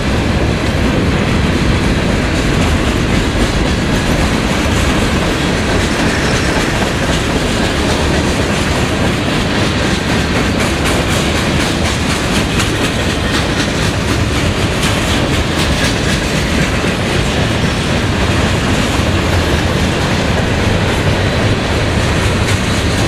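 Freight cars of a long CSX mixed freight train rolling past close by, boxcars and centerbeam lumber flatcars, making a steady rumble and clatter of steel wheels on the rails.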